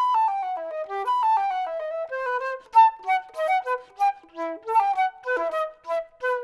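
Unaccompanied silver concert flute playing a classical solo: fast runs of short notes in a single melodic line, several of them falling in pitch.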